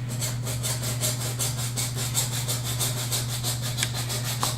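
Small hacksaw cutting through a plastic drain pipe in quick, even back-and-forth strokes, shortening the pipe by about an inch so it clears. A steady low hum runs underneath.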